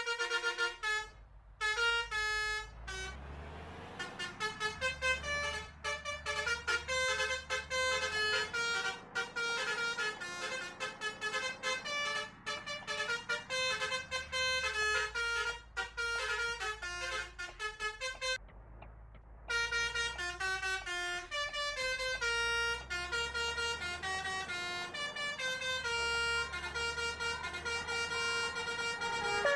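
Telolet multi-tone musical horn playing a fast melody of stepped notes, with brief breaks about a second in and again about two-thirds of the way through. A low hum sits under parts of it.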